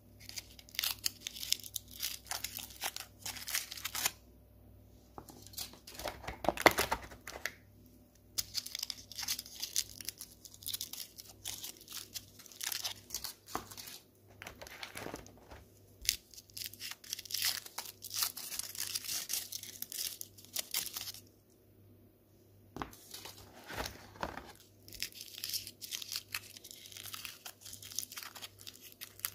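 Gold foil wrappers on cherry liqueur chocolates crinkling and tearing as they are peeled off by hand. The crackling comes in stretches, with a few short pauses between one chocolate and the next.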